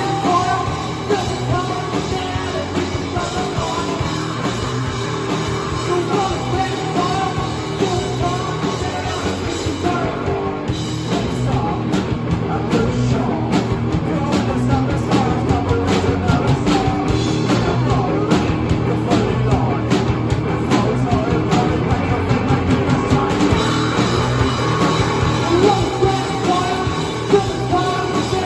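Live rock band playing loud, with a singer's voice over guitars, bass and drums. From about a third of the way in to about four fifths, the sound thins into sharp, choppy hits before the full band and vocals come back.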